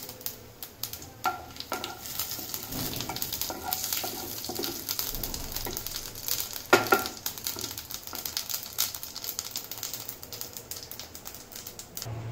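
Cumin seeds sizzling and crackling in hot oil in a kadhai, stirred with a wooden spatula that scrapes and knocks against the pan a few times, the loudest knock about two-thirds of the way through.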